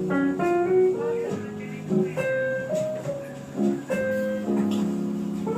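Music with plucked guitar, played back through a sound system during a sound check.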